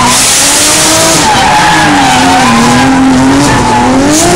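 Nissan drift car sliding sideways with its engine held at high revs. The engine pitch wavers as the throttle is worked, dips, then climbs again near the end, over the continuous hiss and squeal of the spinning rear tyres.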